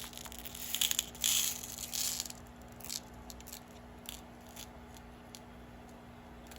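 A small plastic bead bag crinkling as it is handled, followed by a series of light, scattered clicks of small crystal beads and packaging.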